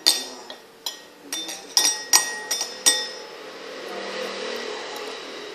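A glass cup clinking about ten times in quick succession in the first three seconds, each knock ringing briefly at the same pitch. After that comes a soft, steady hiss.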